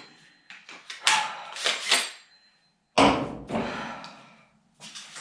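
Clattering and knocking, then a sudden heavy thump about three seconds in that rings out and fades over a second or so.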